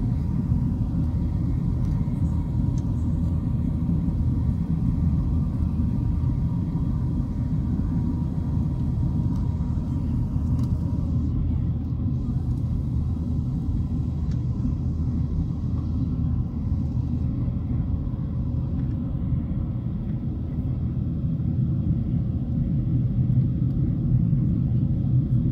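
Steady low rumble of a Boeing 737-800's CFM56 jet engines and rushing air, heard inside the cabin during the climb after takeoff.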